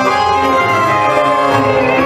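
Tango music played by a live orchestra, sustained melody over low rhythmic pulses.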